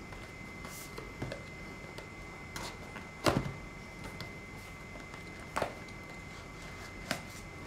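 Cardboard box being slit open with a folding pocket knife and handled: scattered sharp clicks and knocks, the loudest about a third of the way in and another a little past two-thirds, over a faint steady hiss with a thin steady whine.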